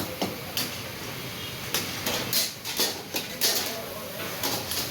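Metal cookware clatter: a utensil striking and scraping a karahi wok in a series of short, sharp clanks and scrapes.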